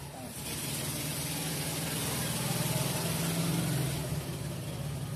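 Repaired angle grinder with a cutting disc running free without load, a test run on its new armature and freshly greased bearing: a steady motor hum with a high whir, easing off a little about four seconds in.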